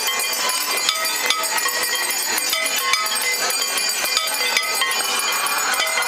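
Many metal temple bells rung over and over during the aarti, making a dense, continuous clanging din with overlapping ringing tones.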